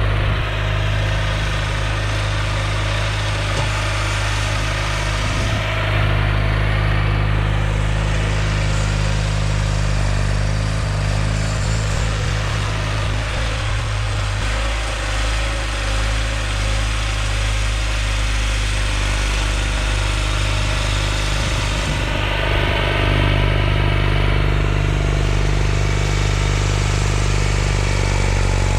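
John Deere 318 garden tractor's two-cylinder Onan engine running steadily under load, driving a front-mounted snowblower through deep snow, with a continuous rushing hiss from the blower.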